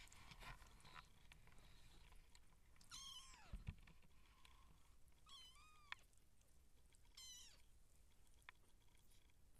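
Three-week-old Siamese kittens mewing: three short, high-pitched mews a couple of seconds apart, the first falling in pitch, with a soft bump and faint scuffling as they move about.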